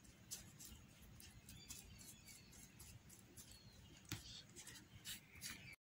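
Faint, irregular scratching and light taps of a small paintbrush spreading a glue-based paste over paper-covered cardboard.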